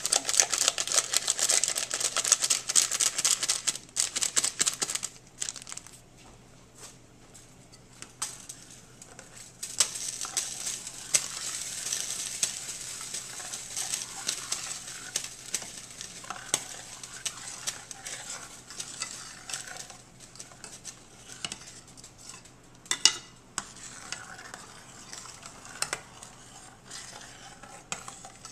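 A paper seasoning packet crinkling as it is shaken out over a saucepan for the first few seconds. Then a metal slotted spoon stirs rice in hot liquid in a stainless steel pot, with scraping and clicks against the pot over a steady hiss, and one sharp knock a little before the end.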